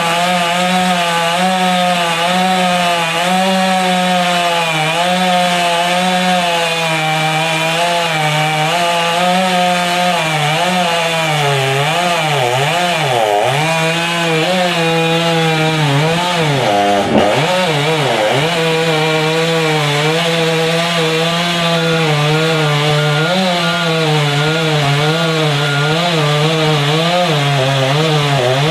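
Ported professional chainsaw at full throttle cutting through wood, its engine pitch wavering under load and dipping sharply twice in the middle before recovering.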